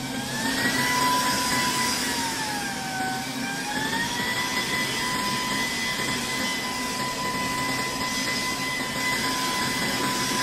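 A small electric motor running with a high whine over a rush of air. The whine rises in pitch at first, dips and comes back up about three seconds in, then holds steady.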